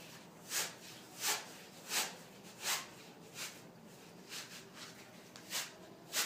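Lycra pole sleeve being pulled down a telescopic pole by hand: a series of short rubbing swishes, about one every 0.7 s, growing lighter and less regular about halfway through.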